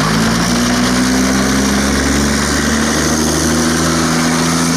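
Diesel engine of a tracked self-propelled howitzer running as the vehicle drives off, a steady drone whose pitch rises and falls slightly.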